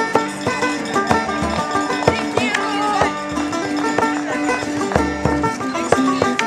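Live folk music: a banjo picking a quick run of notes over a frame drum struck with a stick, the drum landing a low beat every so often.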